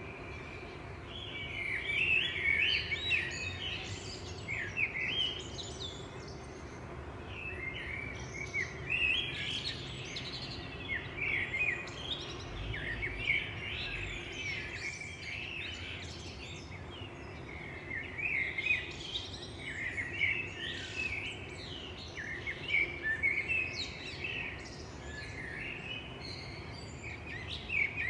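Songbirds singing, several overlapping chirps and short trills in quick bursts, over a steady faint background noise.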